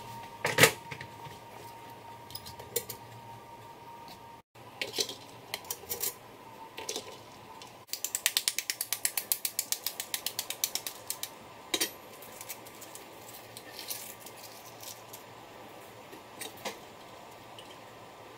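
A spoon tapping the shell of a hard-boiled egg in a quick run of light clicks, about six to eight a second, to crack it for peeling. Scattered single clicks and knocks come before and after.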